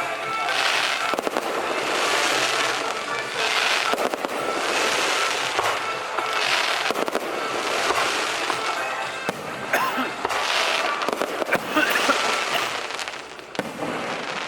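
Firecrackers and fireworks going off, a dense crackling that swells every second or two, with sharper bangs a few seconds before the end.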